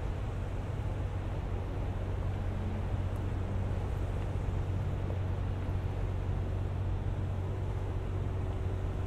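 Steady low hum under an even hiss, with no distinct events.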